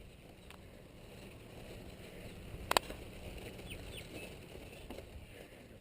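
Mountain bike riding on a dirt track: a low rumble of tyres and wind on the microphone, with one sharp click a little before the middle.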